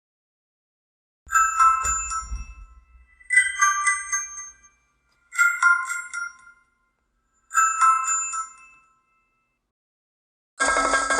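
HTC DROID Incredible 4G LTE ringtone playing: a short phrase of high chiming notes repeated four times, about two seconds apart, with a low thud under the first. Near the end a different, fuller ringtone starts.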